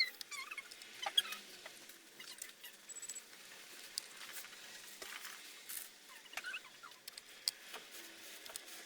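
Scattered light clicks and taps from handling laptop parts during reassembly after a CPU swap, with a few faint high squeaks.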